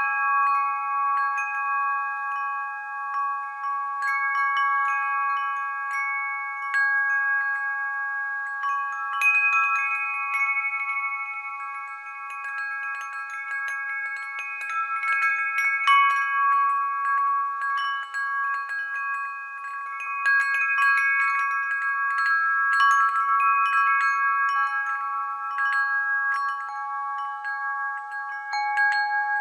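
Background music of chime-like bell tones: many ringing notes held for seconds and overlapping, shifting in pitch every few seconds, with light tinkling strikes throughout.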